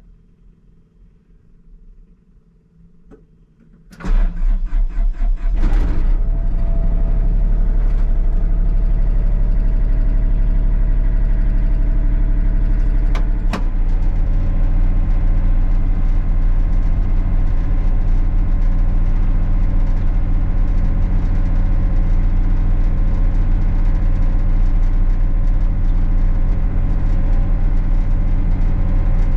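Excavator diesel engine cranking about four seconds in, catching, and settling into a steady run. Around two-thirds of the way through the engine sound dips briefly and then holds steady.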